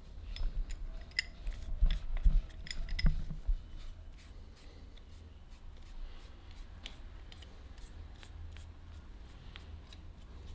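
Handling sounds of a metal rotary egg beater: a quick cluster of clicks and light knocks in the first few seconds, then faint rubbing and occasional ticks as a rag works over its wooden handle.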